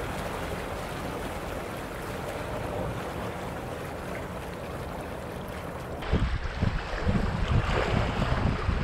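Wind and small waves washing against a rocky shore, a steady hiss. About six seconds in it changes to louder, uneven gusts of wind buffeting the microphone.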